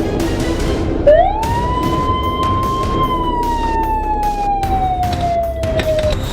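A siren-like wail begins suddenly about a second in, quickly rises in pitch, holds, then slowly winds down over the next few seconds. Underneath runs a soundtrack with a regular beat.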